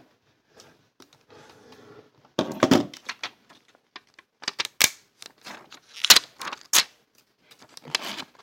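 Irregular sharp clicks, clatters and brief scraping of a floppy disk's plastic and metal parts being handled and pulled apart, with a soft crackle early on.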